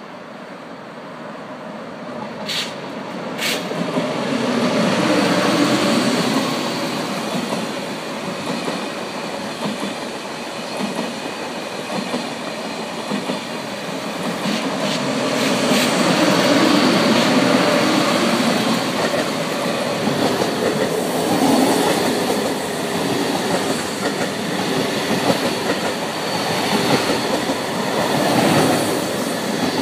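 A TGV Duplex coupled to a single-deck TGV set passes close by with a loud, steady rumble of wheels on rail and clickety-clack over the joints, which swells about four seconds in. There are two sharp clicks shortly before it swells. Near the end a double-deck TER electric unit runs past right beside the track.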